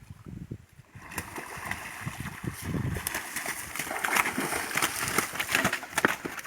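Splashing and sloshing in shallow river water, starting about a second in and growing louder.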